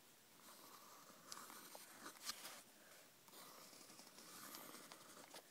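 Faint scratching of a pencil drawing strokes on lined notebook paper, coming in stretches with short pauses.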